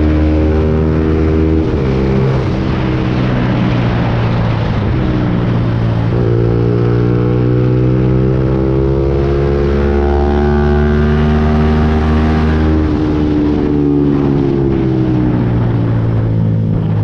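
Lexmoto Viper 125 motorcycle's single-cylinder 125 cc engine running while riding, with wind rush. The engine note shifts abruptly about two and six seconds in, then falls gradually near the end.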